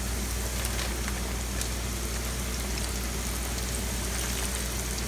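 Floured onion rings deep-frying in hot oil in a cast-iron skillet: a steady sizzle with a few faint pops.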